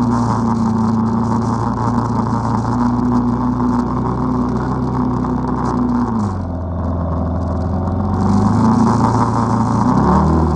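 ATV engine running under throttle, easing off about six seconds in and then revving back up near the end.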